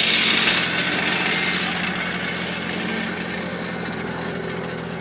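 A small engine running steadily, with a hiss that is strongest in the first second.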